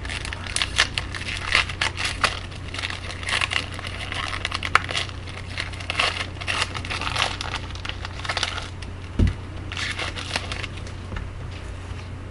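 A hockey card pack's wrapper crinkling and tearing as it is opened by hand, with irregular crackles that thin out near the end. A single thump about nine seconds in, over a steady low hum.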